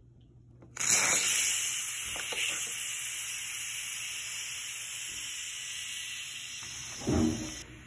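Instant Pot pressure cooker's steam release valve venting steam with a loud, steady hiss that starts suddenly about a second in and eases slightly over several seconds: a manual release of the remaining pressure after a natural release. A brief lower sound comes near the end, and the hiss turns duller just before it ends.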